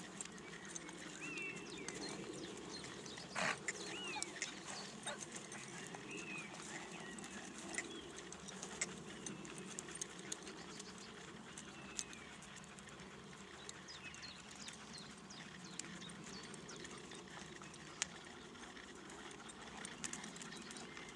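A horse walking on a sand arena: soft, muffled hoof falls and scattered clicks of tack, over a steady low outdoor rumble. Faint high chirps sound in the first few seconds.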